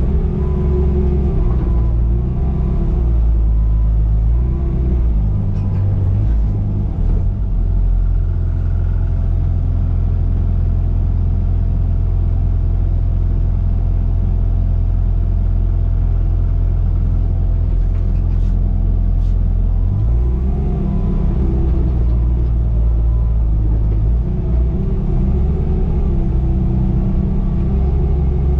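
Bobcat T595 compact track loader's diesel engine running steadily under working load, its note wavering as the load changes; it settles into a steadier drone in the middle, then picks up and wavers again about two-thirds of the way through.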